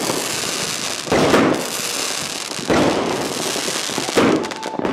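Fireworks going off: three sharp bangs about a second and a half apart, with a continuous hissing rush between them.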